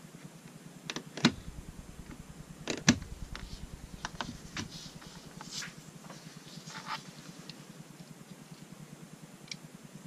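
Clicks and taps of small steel parts and hand tools being handled and set down on a cutting mat, the loudest two sharp knocks about one and three seconds in, then lighter clicks that thin out.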